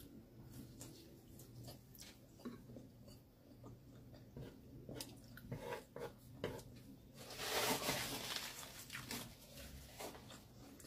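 Close-miked chewing and mouth sounds of someone eating grilled Hungarian sausage and spicy noodles, with small clicks from chopsticks picking at the food. A louder noisy stretch of about a second comes about seven seconds in.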